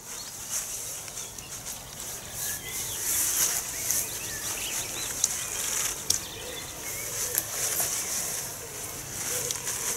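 Rustling of the tent's nylon and mesh inner as it is lifted and clipped onto the poles, with a sharp click about six seconds in.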